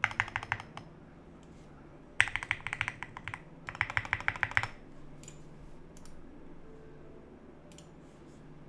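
Typing on a GMMK Pro mechanical keyboard with lubed Akko CS Jelly Black switches and SA ABS keycaps. The keystrokes come in three quick bursts in the first half, then only a few single key presses.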